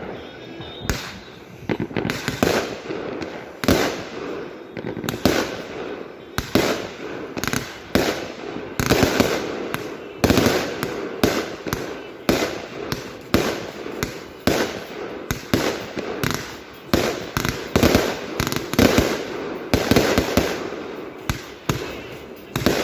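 Lesli 'Kyoto Kamuro' consumer firework cake firing a long series of shots, roughly one to two a second, each a sharp bang trailing off.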